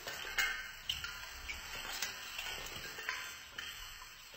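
Faint rustling of artificial Christmas tree branches with irregular light clicks and taps of ornaments as a cat clambers through the tree.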